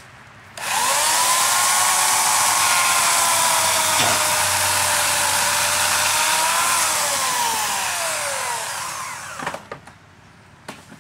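Buzzsaw running, starting suddenly about half a second in and holding steady; about seven seconds in its pitch falls as it winds down, fading out near the end, followed by a couple of faint knocks.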